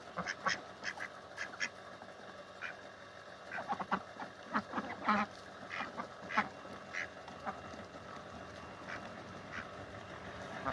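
Domestic ducks quacking in many short, separate calls, most often in the middle and thinning out toward the end.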